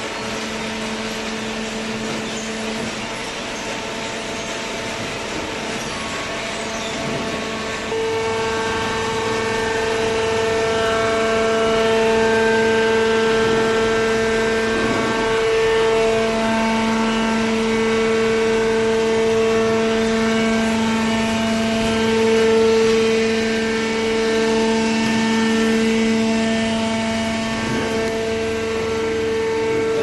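Hydraulic cardboard baling machinery running: a steady mechanical whine of several held tones over a rushing background. It grows louder and fuller about eight seconds in.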